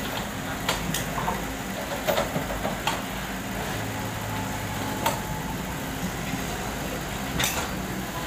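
Komatsu PC78US mini excavator's diesel engine running steadily while its bucket digs into broken asphalt and rubble, with sharp knocks and scrapes of the steel bucket striking stones several times.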